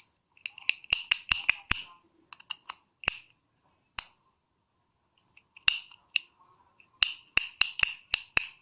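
Small household electrical switch being flicked on and off by hand, sharp plastic clicks in quick runs about a second in and again near the end, with single clicks between, as its action is checked after reassembly.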